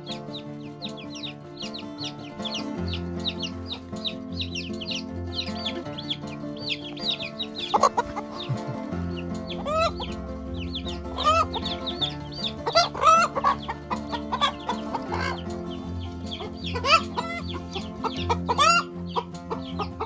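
Chicks peeping in quick high chirps over soft background music. From about eight seconds in, Silkie hens start clucking with short rising calls, loudest in clusters near the end, while the chicks keep peeping.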